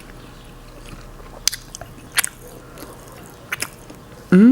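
Close-miked chewing of a juicy birria taco dipped in consommé: soft wet chewing with a few sharp mouth smacks, then a short hummed "mm" near the end.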